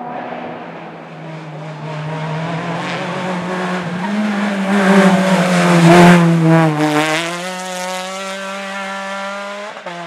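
Renault Mégane rally car at full throttle, approaching and passing closest about six seconds in with a drop in pitch, then pulling away with the engine revving up in gear.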